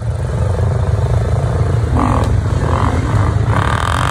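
Several dirt bike engines running, a loud, steady low drone with a few brief swells in the middle.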